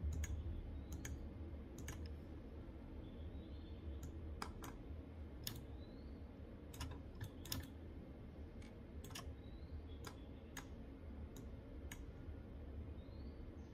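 Irregular single clicks of a computer mouse, roughly one or two a second, over a faint steady low hum.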